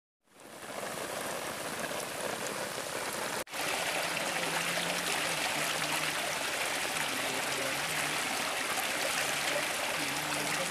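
Water and sand slurry rushing steadily down a carpet-lined mining sluice box, with a low steady hum underneath. It fades in at the start and drops out for an instant about a third of the way in.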